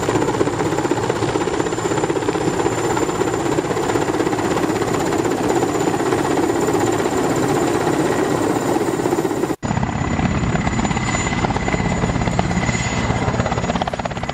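Helicopter sound effect: steady rotor chop and engine noise. It cuts out for an instant about nine and a half seconds in and resumes slightly duller.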